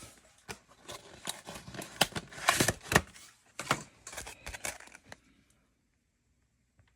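Plastic soft-bait packaging crinkling and rustling as it is handled, a run of irregular crackles that stops about five seconds in.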